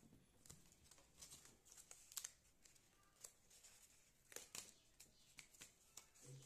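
Faint, scattered rustles and small clicks of paper shoe pattern pieces being worked free and handled by hand.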